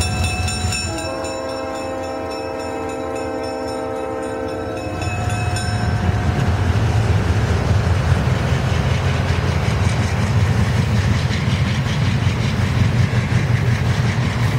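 A locomotive's multi-note air horn sounds one long blast, ending about five seconds in. The train then runs past with a louder low rumble and its wheels clattering on the rails.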